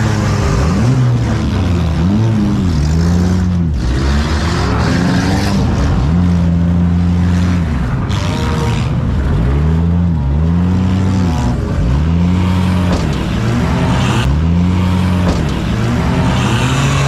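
Demolition derby cars' engines revving hard, rising and falling in pitch again and again, with stretches held at high revs.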